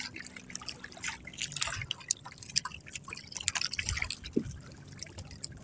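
Water dripping and splashing in small irregular drops and splats as a wet nylon handline is hauled in hand over hand over the side of a small boat.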